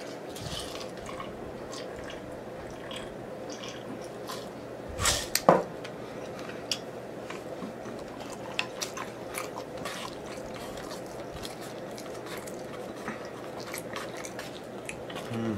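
Close-miked eating sounds: a person chewing with small wet smacks and clicks of the mouth, with a louder pair of sounds about five seconds in.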